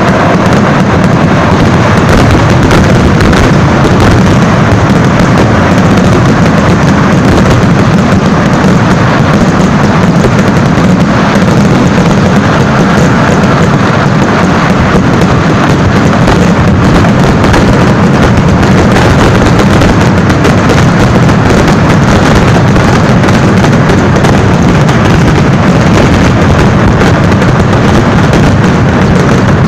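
Very loud, unbroken barrage of firecracker and aerial-shell explosions from a massed temple fireworks display (vedikkettu), the bangs so close together that they merge into one continuous din with no pause.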